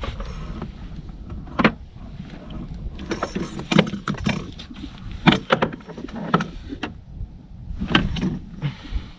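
Irregular knocks and clatters on a kayak as a landed pike and gear are handled for measuring, over a steady low rumble.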